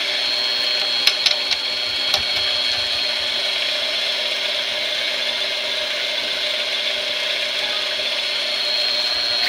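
Small benchtop lathe running steadily, its spindle drive giving a constant high gear whine. A few short sharp clicks come in the first couple of seconds.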